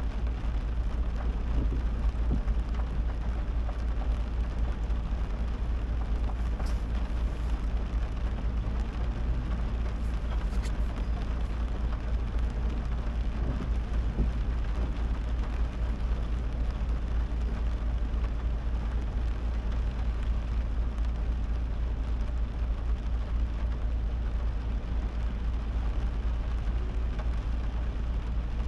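A car driving in heavy rain: an even hiss of rain over a deep, steady rumble from the car and road.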